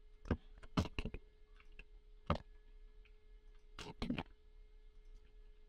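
Scattered, irregular clicks of a computer keyboard and mouse while working in 3D software: a few in the first second, one alone about two seconds in, and a short cluster about four seconds in. A faint steady hum runs underneath.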